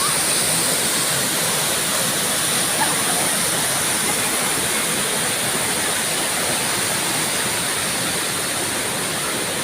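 A mountain waterfall pouring down, a steady unbroken rush of falling water.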